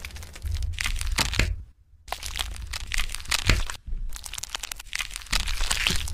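Steel knife blade slicing and pressing through lipstick, a crisp crunching crackle with sharp little clicks. It comes in three stretches, broken by brief silences about two and four seconds in.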